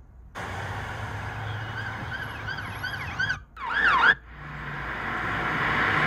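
Stock sound-effect recording of several police cars passing with sirens wailing over traffic noise, ending in a loud quick siren sweep that cuts off about four seconds in. Then a car drive-by effect starts, its road noise swelling steadily louder.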